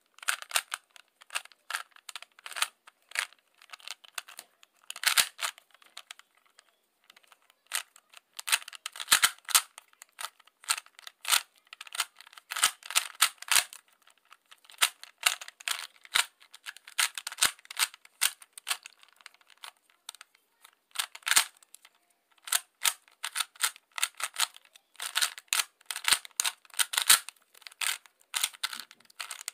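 3x3 puzzle cube being turned fast by hand during a timed solve: rapid clacking of its plastic layers, in bursts broken by short pauses.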